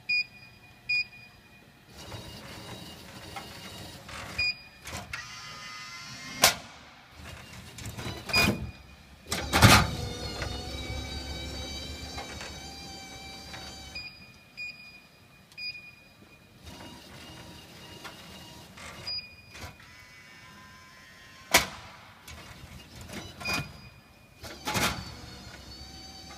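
Vending machine's electric product lift and conveyor running in stretches, with a few short beeps and about five sharp knocks and clunks as the mechanism moves and stops.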